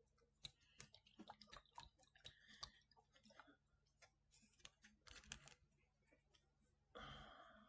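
Faint clicks and taps of a hot sauce bottle being shaken and handled, with a brief louder rustle near the end.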